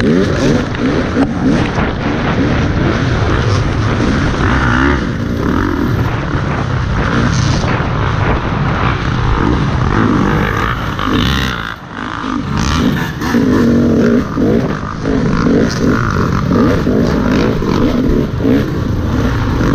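Off-road dirt bike engine running hard under changing throttle, heard from a helmet-mounted camera, with a brief drop in level about two-thirds of the way through.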